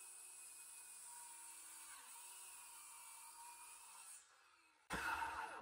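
Circular saw running while cutting through a board, a faint steady whine that dips briefly in pitch about two seconds in and stops about four seconds in. A sudden louder noise follows near the end.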